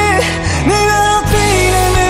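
A Burmese pop-rock song: a singer holds and slides long melody notes over a band with steady bass and guitar.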